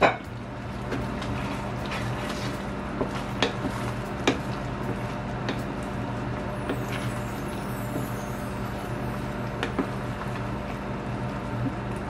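Wooden spoon stirring a thick double-cream sauce with pasta and chicken in a stainless steel frying pan, with a few light knocks of the spoon against the pan, over a steady low hum.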